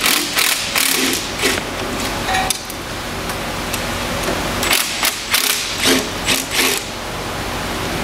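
Sharp hand-hammer taps in two bursts, several in the first second and a half and about six more between about five and seven seconds in, knocking the baffle ring loose inside a 200 HP electric motor's frame. A steady hiss runs underneath.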